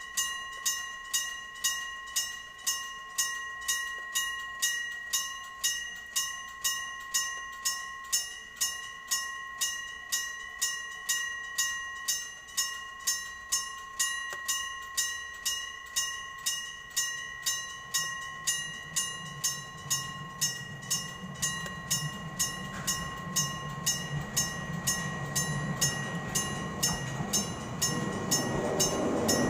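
Electric bell of a level-crossing signal ringing with evenly spaced strikes, about two and a half a second. About two-thirds of the way in, the low rumble of an approaching train rises under the bell and grows louder toward the end.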